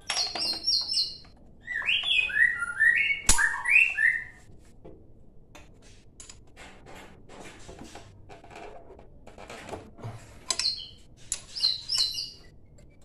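A songbird chirping in quick runs of short repeated notes, high at first, then a lower stepped phrase, then high again near the end. A single sharp click about three seconds in, and a run of faint clicks in the middle.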